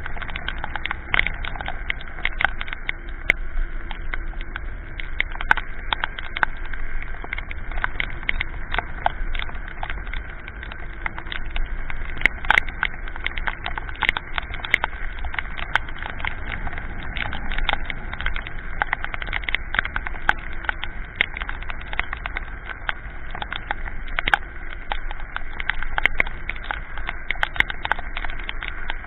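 Raindrops tapping on the camera housing in many irregular sharp clicks, over the steady wind and road rumble of an electric scooter riding through rain.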